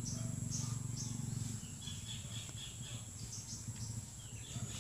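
Outdoor ambience of scattered high, short chirps from small birds or insects, a few a second at uneven spacing, over a low steady hum.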